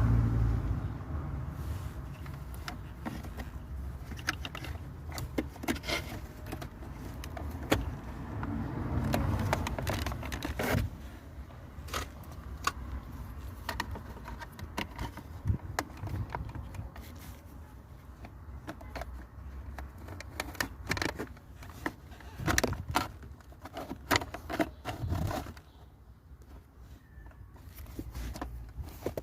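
Scattered sharp clicks and light metallic clinks over a low rumble, louder around the start and again about nine seconds in.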